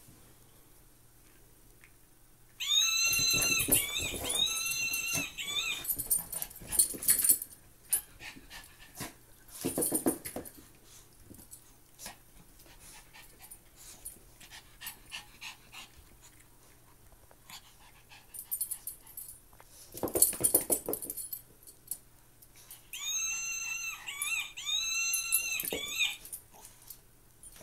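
Two Maltese dogs play-fighting: bursts of growling and scuffling, broken by two pairs of high-pitched squeaks, one pair about three seconds in and another near the end.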